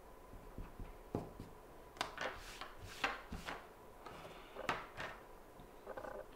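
Coloured pencils being handled: a series of sharp clicks and knocks as pencils are put down and picked up, mostly between about two and five seconds in.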